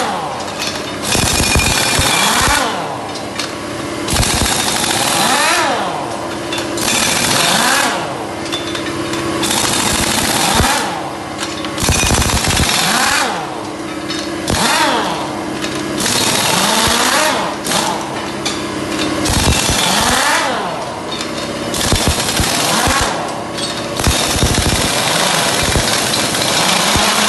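Loud power-tool noise from metal repair work, in repeated bursts every couple of seconds, its pitch dipping and rising again between bursts.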